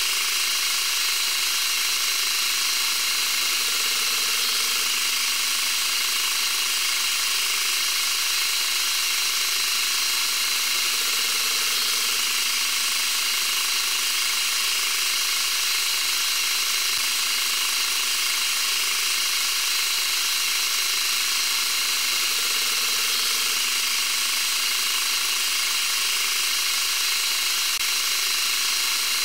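Manual metal lathe turning a steel workpiece under automatic feed: a steady, high-pitched cutting and running noise with a few fixed tones in it, unchanging throughout.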